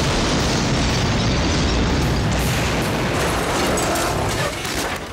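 Explosive charge going off: a loud blast followed by a long, dense rush of noise that fades near the end.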